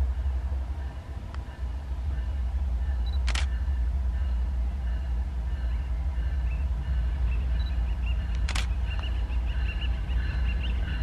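Diesel-electric locomotive approaching with a steady low engine rumble that grows louder about two seconds in. Two sharp clicks stand out, one about a third of the way in and one near the end, and faint high squeaks begin in the last couple of seconds.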